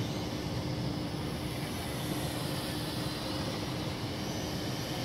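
Kai Deng K-60 X-Fighter toy quadcopter's motors and propellers humming at one steady pitch as it flies, over a steady hiss.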